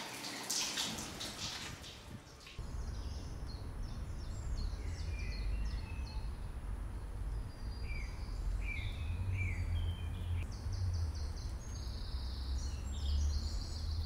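Running water splashing for the first couple of seconds: the tortoise pond being slowly filled with fresh water. Then small birds chirp and sing repeatedly over a steady low rumble.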